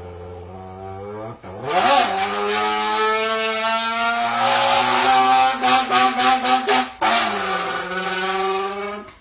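Mouth-made race car engine sound, voiced into a can: a low steady note that sweeps up into a high held note, a quick stutter of pops at about five a second, then a short break and a fresh jump up in pitch, imitating a downshift from third gear to second at high speed.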